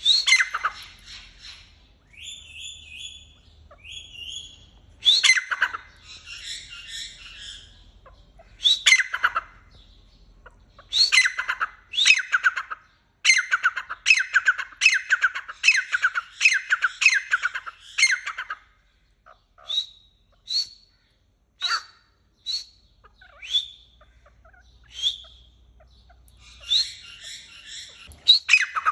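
Partridge (tetar) calling: loud runs of sharp notes, each falling in pitch, repeated in quick succession. In the later part come single short notes about a second apart, then another quick run near the end.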